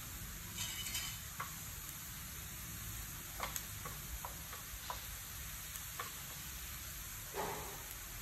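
Metal spatula scraping and tapping against a wok in a series of short separate clicks and scrapes, over a faint steady sizzle of hot oil.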